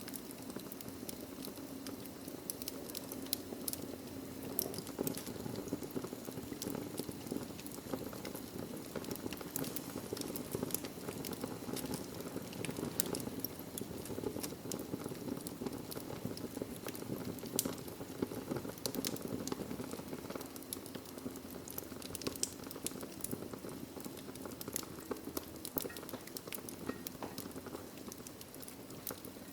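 Wood logs burning in a fireplace: a steady low rush of flame with dense small crackles and occasional louder pops.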